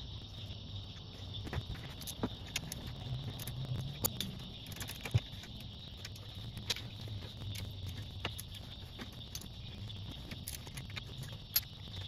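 Light clicks and taps of wire connectors being handled and fitted at a golf cart battery's terminals, with a few sharper clicks, over a steady high chirring of insects.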